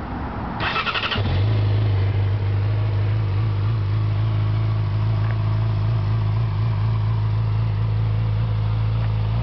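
2007 Yamaha R6's inline-four engine cranked by its electric starter and catching about a second in, then idling steadily.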